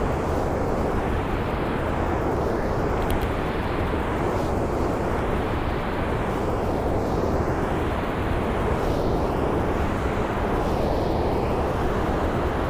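Steady rushing roar of river water pouring through a dam's sluice gates, unbroken and even throughout.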